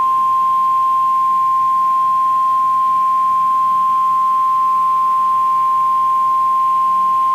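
NOAA Weather Radio 1050 Hz warning alarm tone: a single loud, steady, high-pitched beep held for about nine seconds, the signal that a warning-level alert is about to be read.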